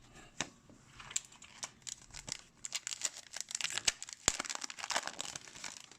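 A plastic-foil hockey card pack wrapper being torn open and crinkled: a run of sharp crackles, thin at first and thickest in the second half.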